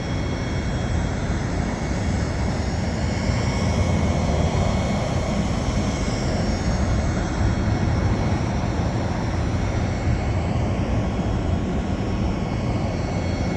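Steady rush of highway traffic going past.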